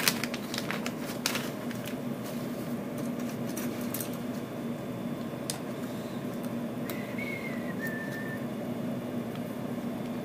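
Steady low hum from the workbench equipment, with a few light clicks in the first second and a half and another later. About seven seconds in, a faint high tone steps down slightly and lasts a second or so.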